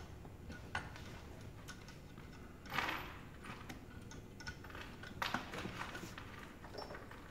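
Scattered light metal clicks and taps from a valve spring compressor being fitted and worked on the valve springs of a Honda J-series cylinder head, with a brief scraping rattle about three seconds in and another cluster of clicks about five seconds in.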